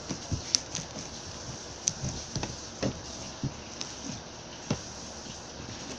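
Crunchy foam-bead slime being squeezed and stretched by hand, giving irregular short pops and crackles.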